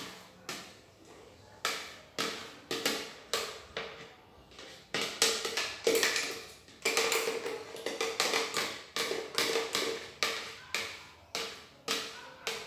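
A spoon knocking and scraping against a plastic blender jar, about two sharp taps a second, each with a short ring, as thick blended cream is knocked out into a glass jar.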